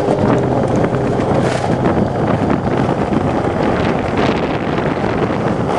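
Skateboard wheels rolling fast down a concrete ramp, a steady rumble, with wind buffeting the microphone.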